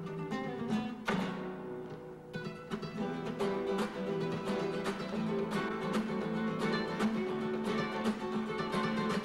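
Acoustic guitar playing a flamenco rumba: fast plucked notes and chords with sharp, frequent attacks and a strong strummed chord about a second in.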